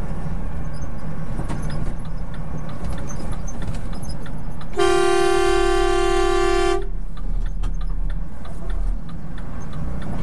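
A vehicle horn sounds one steady blast about two seconds long, about five seconds in, over a steady low engine rumble heard from inside the vehicle.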